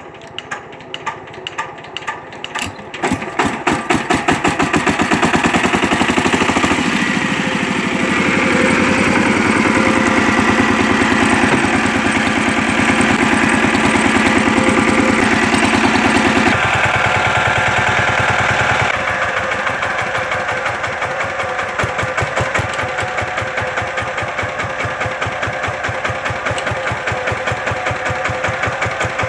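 Engine of a farm ploughing machine running with an even chugging beat, revving up about three seconds in and then running steadily under higher revs; it eases back to a lower, steady run about two-thirds of the way through.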